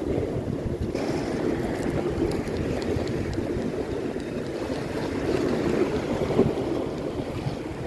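Wind buffeting the microphone, with sea waves washing against rocks underneath.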